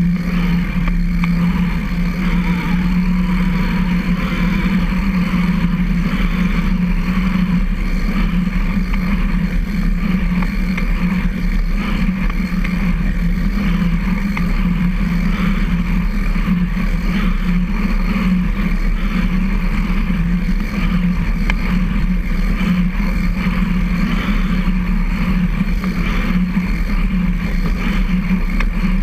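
Steady running noise of a recumbent trike rolling along a concrete trail: tyres and chain drivetrain giving a constant hum, with a low rumble underneath.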